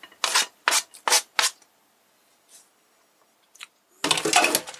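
Knife scraping diced tomato off a plastic cutting board: four quick scrapes in the first second and a half. A longer clatter of utensils being handled follows near the end.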